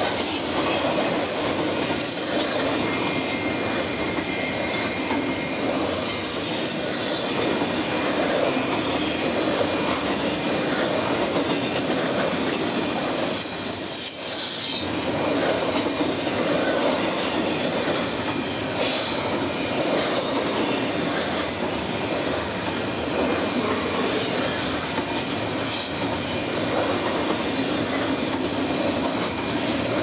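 Union Pacific intermodal freight train's double-stack well cars rolling past at speed: a steady rumble and rattle of steel wheels on rail, with a few brief high-pitched wheel squeals and a short lull about halfway through.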